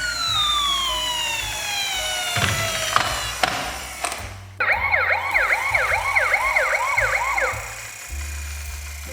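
Emergency-vehicle siren winding down in one long falling tone, then a few sharp clicks. After a short pause, a fast yelp siren warbles for about three seconds. Background music with a steady bass line plays underneath.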